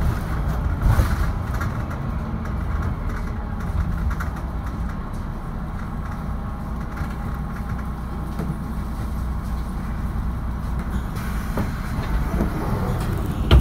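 Mercedes-Benz Citaro II city bus heard from inside the cabin: a steady low engine rumble as the bus pulls into a stop and stands there running. A brief louder knock comes right at the end.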